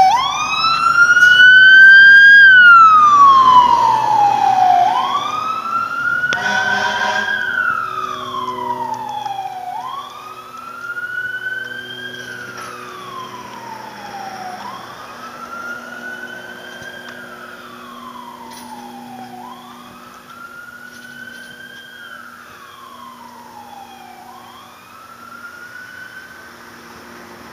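Fire engine's wail siren sweeping up and down in pitch, about one cycle every five seconds, over the rumble of the truck's engine. It grows steadily fainter as the truck moves away.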